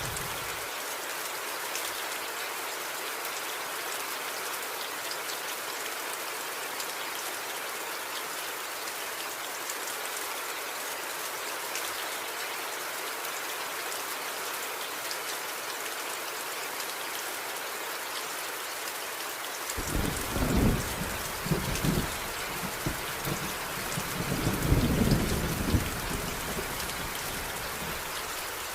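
Steady heavy rain falling. About two-thirds of the way through, a thunderclap breaks in with a few sharp cracks, then rolls into a deep rumble that swells again and fades away.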